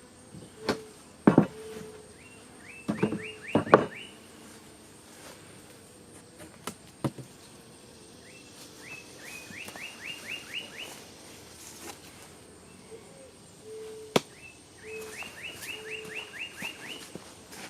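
Sharp wooden knocks and clunks as beehive parts are handled, the loudest near the start, with a songbird singing three phrases of quick rising chirps, each about eight notes.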